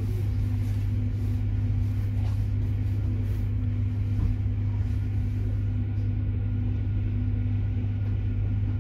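Inside a Bombardier Régio2N electric multiple unit rolling slowly through a station: a steady low hum with a fainter higher tone above it.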